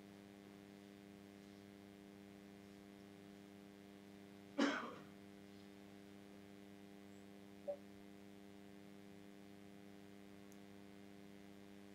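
Faint steady electrical hum on the call line, broken once, about four and a half seconds in, by a single short cough.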